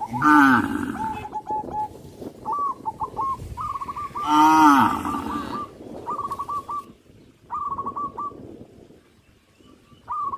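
A cow moos twice in short, arching calls about four seconds apart. Birds call in repeated short trills in between.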